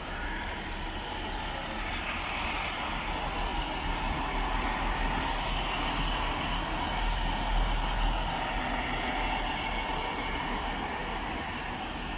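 Two-car Class 165 diesel multiple unit arriving and running slowly past the platform: a steady engine-and-wheel noise that grows louder as the cars pass and eases off near the end.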